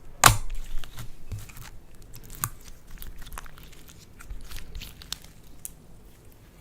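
Slime being squeezed and worked by hand: one sharp crack just after the start, then scattered small crackling clicks that thin out and fade.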